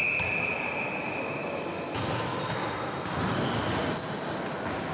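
Busy sports-hall din: a dense wash of distant voices and ball bounces echoing in a large hall, with a high steady squeal for the first two seconds and another, higher one near the end.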